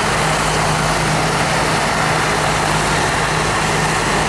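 Air ambulance helicopter running on the ground: a loud, even turbine and rotor noise with a steady low hum.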